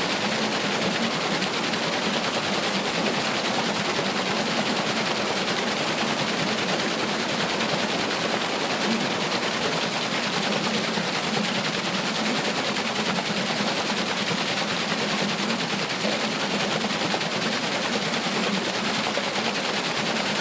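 Water rushing and splashing steadily onto a wooden water wheel, a dense, even spattering noise that holds at one level.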